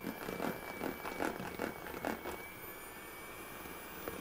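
Electric hand mixer running with a steady whine, its beaters churning eggs and soaked bread into a smooth mash in a bowl. There are irregular knocks and slaps for about the first two seconds, then a smoother, even sound.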